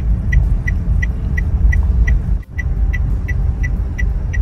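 Inside a moving Daihatsu car: a steady low engine and road rumble, with the turn-signal indicator ticking evenly about three times a second.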